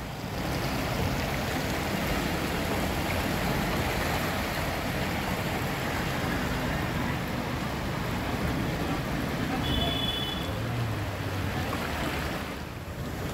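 Floodwater rushing along a waterlogged street, a steady noisy wash, with a brief high beep about ten seconds in.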